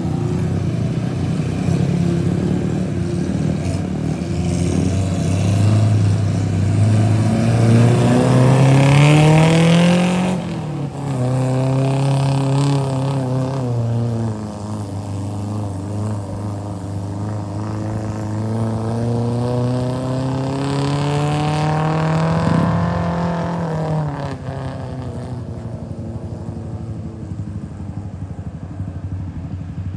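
Off-road vehicle engine pulling away and accelerating. Its pitch climbs, drops abruptly about ten seconds in at a gear change, climbs again through the next gear, then eases off a little over twenty seconds in.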